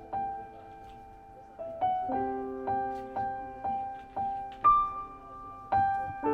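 Gentle background piano music: single notes struck about twice a second, each ringing and fading, over sustained lower notes.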